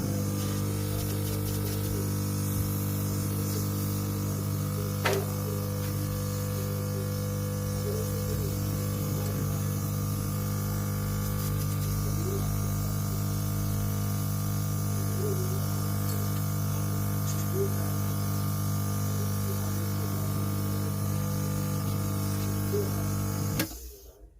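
Small electric air compressor running with a steady, even hum. It switches on abruptly and cuts off about 23 seconds later, with a single click about five seconds in.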